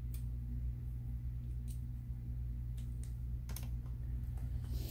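A small Phillips screwdriver clicks irregularly, about six times, against a screw and the metal bottom cover of an Asus UX303L laptop as the screw is undone. A steady low hum runs underneath.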